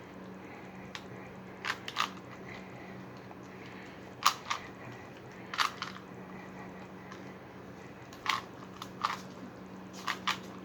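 Rubik's cube layers being twisted by hand: sharp plastic clicks, often in quick pairs, every second or two.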